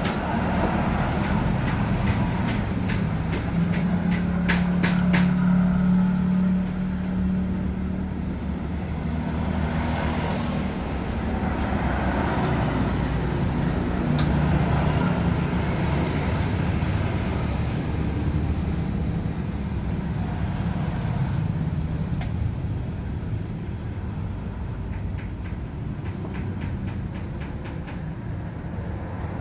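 Motor vehicle engine running steadily for the whole stretch, its drone swelling and easing, with scattered sharp metallic clicks and knocks.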